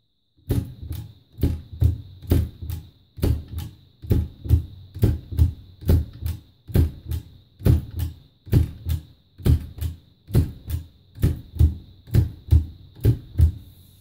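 Oliver typewriter mechanism clacking in a steady rhythm, about two sharp strikes a second, loosely in pairs, each with a low thud.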